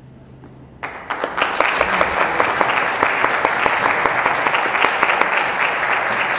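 A brief hush, then about a second in an audience starts applauding, with dense, steady clapping that continues.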